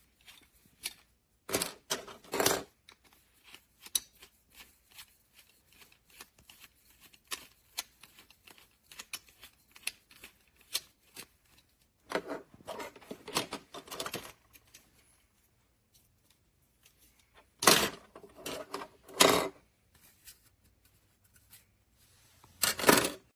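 Packaging and plastic toy parts being handled: many light clicks and taps, with several louder bursts of rustling and crinkling, the loudest in the second half.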